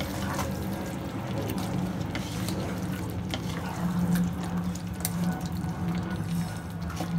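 Wooden spatula stirring thick, wet chicken korma gravy in a nonstick frying pan, a squelching wash with scattered knocks of the spatula against the pan, over a steady low hum.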